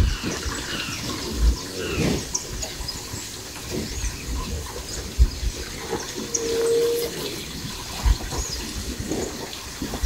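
Cattle in a corral: a cow snuffling and blowing close to the microphone, with a few dull low thumps, while small birds chirp in the background.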